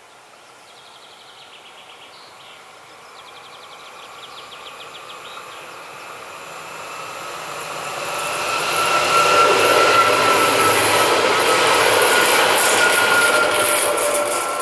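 Pesa Elf II electric multiple unit approaching and passing on open track, growing from faint to loud at about eight seconds and staying loud as it goes by. A thin steady high tone runs through the rail noise. Birds sing in the first few seconds.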